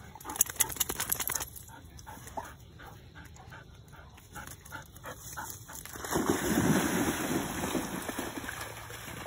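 Two Labrador retrievers plunging into a river and swimming: short scuffling knocks in the first seconds, then loud churning and splashing water from about six seconds in.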